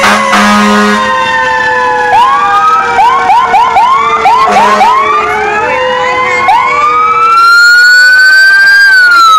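Fire apparatus sirens passing, several at once: a horn blast in the first second, a siren tone winding slowly down, then rapid rising whoops about three a second. Near the end a long rising wail peaks and starts to fall.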